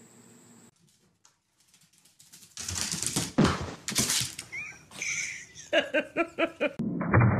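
A small dog scrambling onto a couch with rustling and knocks, then a quick run of about six short yaps.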